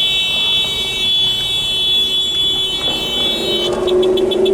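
A high-pitched electronic alarm tone sounds steadily, then breaks into rapid beeping about five beeps a second near the end. A car horn from the car behind comes in under it over the last second or so.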